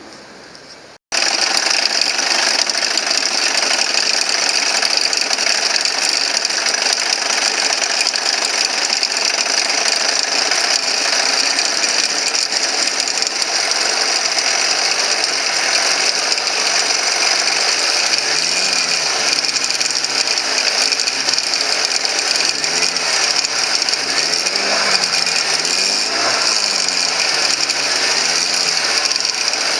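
Mercedes-Benz M271 four-cylinder engine running, heard close up with a loud, fast mechanical ticking rattle over the engine noise. This is the abnormal noise the car is being checked for. It starts abruptly about a second in.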